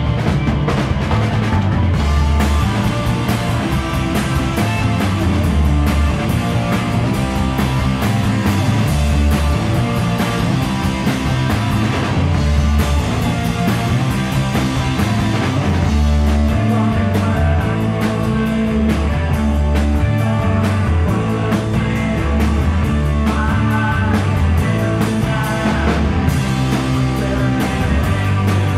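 Punk rock band playing live: guitar and drums over a heavy bass line, at a steady driving level.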